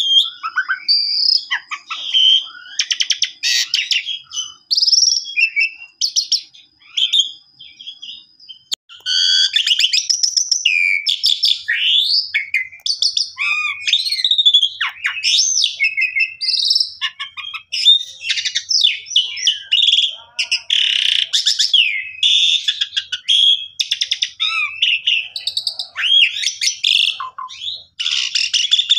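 Asian pied starling (jalak suren) singing vigorously: a long, varied song of whistles, rising and falling glides, chatter and harsh notes. A thin held whistle runs through the first third, there is a brief lull, and then the phrases come almost without a break.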